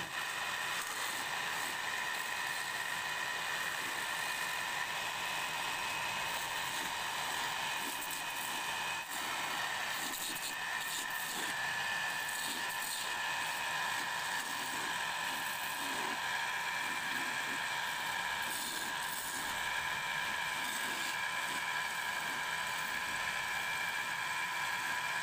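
Wood lathe running with a steady whine while a hand-held turning tool scrapes and cuts a spinning wooden spindle, a hissing shaving sound over the motor.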